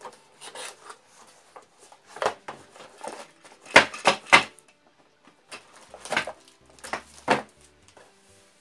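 Cardboard Mega Bloks box being handled and tipped, with bagged plastic building pieces rattling and clattering inside and the plastic bag crinkling. The sharp knocks come in two clusters, about four seconds in and again around six to seven seconds.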